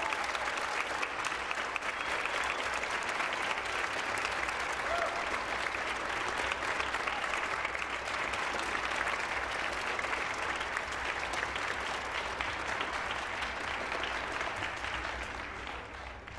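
A large audience applauding, with the choir on stage clapping along; the applause dies away near the end.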